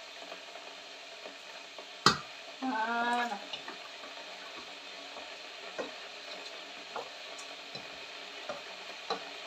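Wooden spoon stirring diced vegetables in tomato sauce in a stainless steel pot, with soft scraping and a few light knocks against the pot, over a faint steady sizzle of the sauce cooking. A sharp knock about two seconds in is the loudest sound, followed by a short vocal sound.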